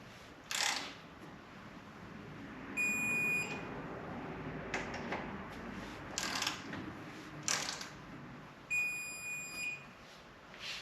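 Electronic torque wrench beeping twice, a steady high beep of under a second each time, about six seconds apart, signalling that each bolt has reached the set torque of 33 foot-pounds. Short clicks and scrapes of the tool being worked come in between.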